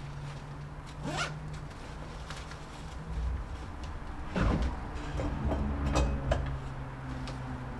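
A zipper being pulled twice, each pull a quick rising rasp, about a second in and again about four and a half seconds in, with a few short tugs after the second. A steady low hum runs underneath.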